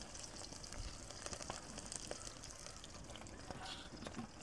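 Onions and green chillies frying in oil in a kadai: a faint, steady sizzle with small crackles.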